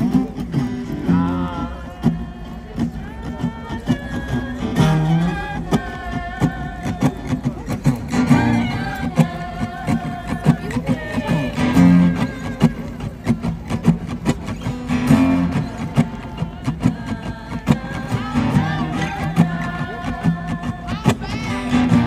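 Acoustic guitar strummed while a man sings in long held notes, with no clear words.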